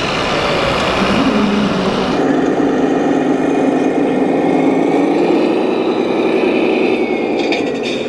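1/14-scale RC truck running, a steady engine-like drone whose hum rises slowly in pitch. The sound changes abruptly about two seconds in, and there are a few light clicks near the end.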